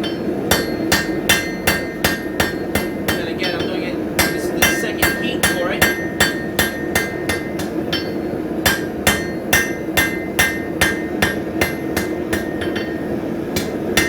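Blacksmith's hand hammer striking hot steel stock on an anvil to square it off: a steady rhythm of about three blows a second, each with a bright metallic ring, with two brief pauses. A steady hum runs underneath.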